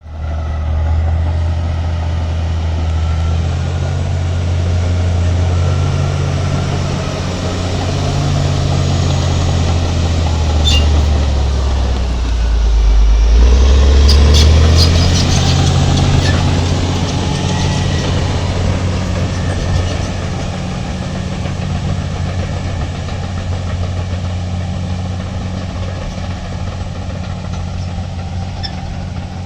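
Heavy diesel engine of road-building machinery running under changing load, its note rising and falling and loudest about halfway through. A few sharp metallic clanks come around the middle.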